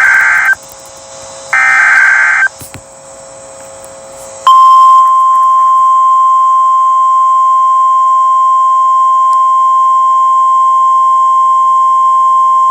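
Emergency Alert System SAME header: short harsh, buzzy data bursts, one ending just after the start and another about a second later, then after a two-second pause a steady single high tone, the NOAA Weather Radio 1050 Hz warning alarm tone that signals a warning is about to be read.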